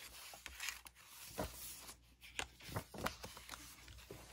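Paper rustling as a handmade junk journal's cards and pages are handled and a page is turned, with a few sharp clicks and taps among the rustling.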